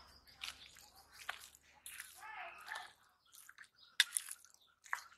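Metal spoon stirring and turning chopped green jackfruit with ground spices in a steel bowl: irregular wet squishing with sharp scraping clicks of spoon against the bowl.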